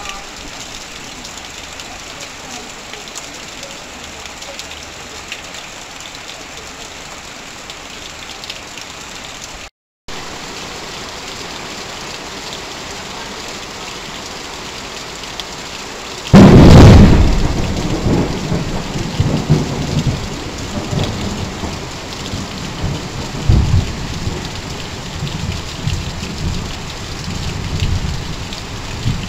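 Heavy rain falling steadily on corrugated metal sheeting and leaves, with runoff pouring from a roof edge. About sixteen seconds in a sudden loud thunderclap breaks out and rolls on as a long low rumble, swelling again a few seconds later. The sound drops out for a split second about ten seconds in.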